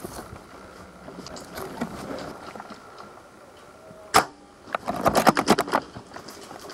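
A single sharp click about four seconds in, then about a second of rapid, irregular clicking and rustling, over a faint background hiss.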